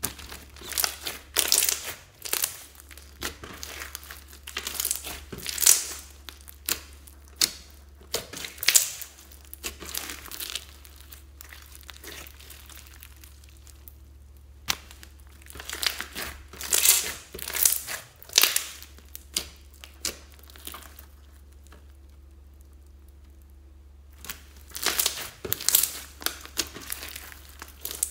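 Clear slime packed with foam beads being squeezed and kneaded by hand, giving off wet crackling and popping in runs of several seconds, with quieter pauses between the runs.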